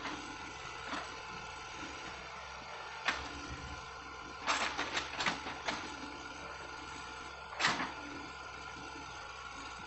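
Hitachi hydraulic excavator's diesel engine running steadily, with sharp knocks about three seconds in, a quick cluster of them around the middle, and one more near the end.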